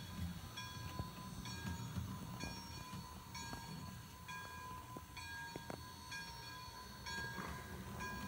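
Bachmann K4 model steam locomotive running with a TCS WOW Steam sound decoder: an even, slow chuff from its small speaker, about one beat every 0.8 seconds, over a low rumble of the running gear on the track, with a few sharp clicks.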